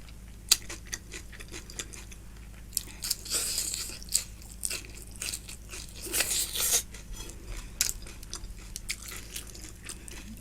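Close-miked eating: wet chewing with frequent smacking clicks of the mouth, and two longer crunchy bursts about three and six seconds in.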